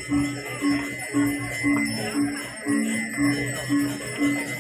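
Balinese gamelan playing a repeating pattern of low metallic notes, about two a second, alternating between two pitches. A bell rings steadily above it.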